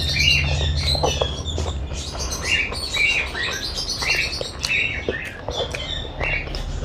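Close-miked eating sounds: chewing and wet mouth smacks, with short squeaky clicks repeating about once or twice a second.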